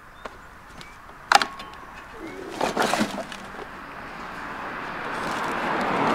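A large boulder tipping over on a steel hand truck: a sharp knock about a second in, then a few seconds of knocking and scraping as it shifts and settles. A rushing noise builds near the end.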